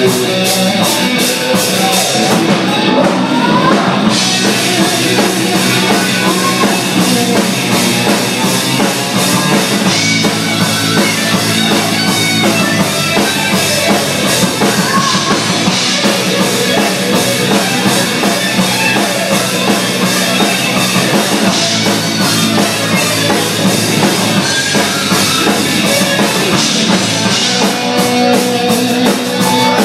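Live rock band playing loud: electric guitars over a steady drum-kit beat with cymbals, the lead vocal mostly absent.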